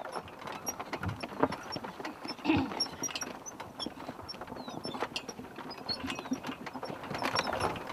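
Horse pulling a cart on a dirt road: irregular hoof clops with the cart and harness rattling and knocking.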